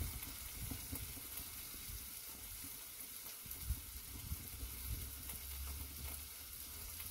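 Salmon fillets sizzling in a nonstick frying pan, a steady soft hiss of frying.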